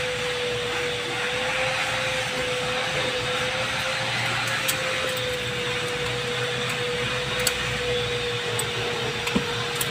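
Steady machine hum: one slightly wavering tone over a hiss, with a few faint ticks.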